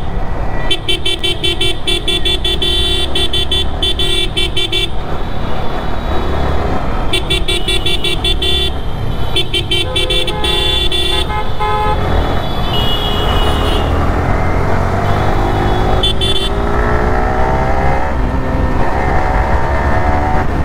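Motorcycle riding through traffic with wind on the microphone. Vehicle horns honk in rapid repeated toots through the first half. Over the last several seconds the engine pitch climbs slowly as the bike accelerates.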